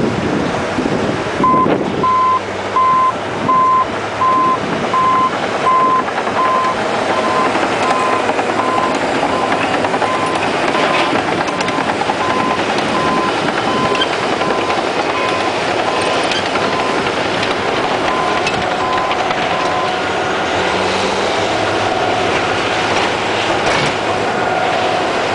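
Caterpillar D8N bulldozer working: its diesel engine runs steadily with clanking steel tracks, and its backup alarm beeps about one and a half times a second, loudest at first, stopping about 20 seconds in as the dozer stops reversing.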